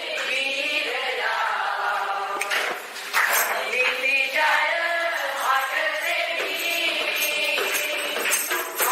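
A worship song: several voices singing together, with a tambourine jingling.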